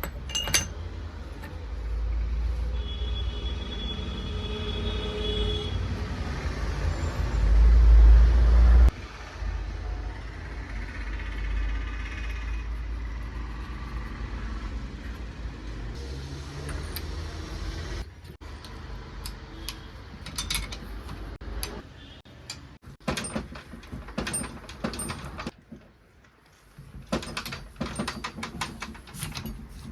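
Workshop sounds of a front shock absorber strut being reassembled: a steady low rumble for about nine seconds, loudest just before it stops suddenly, then a run of sharp metallic clicks and knocks.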